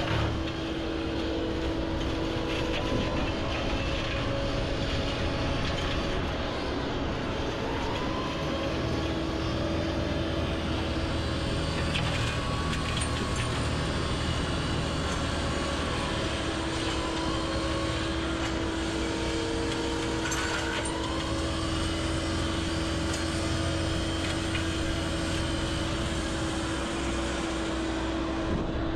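Excavator's diesel engine and hydraulics running steadily while driving a hydraulic flail mower attachment, with a steady whine that drops out for several seconds in the middle and then comes back.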